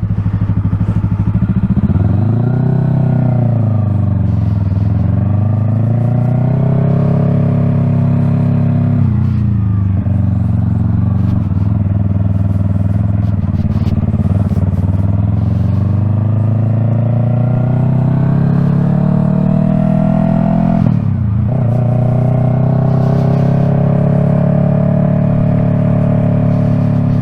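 Yamaha R3's 321 cc parallel-twin engine running through an aftermarket M4 Street Slayer exhaust while riding at low speed, its note rising and falling with the throttle and dropping sharply twice.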